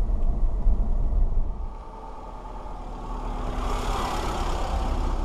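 A car driving on a tarmac lane: a low engine and road rumble inside the cab, then the rush of tyres and engine as the car passes over the road surface, swelling about four seconds in and fading away.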